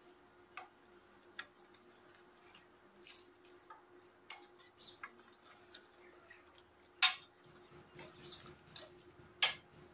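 Metal ladle clicking and tapping against the side of an aluminium pot while stirring cauliflower in a yogurt gravy: light, irregular clicks, with two louder knocks about seven seconds in and near the end. A faint steady hum runs underneath.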